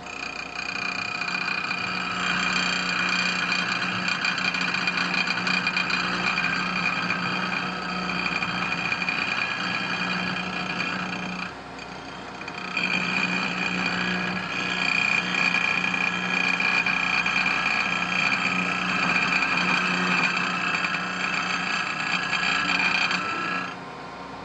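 Wood lathe running while a turning chisel cuts the spinning wood: a steady scraping hiss over a steady hum. The cut eases off briefly about halfway through, then resumes.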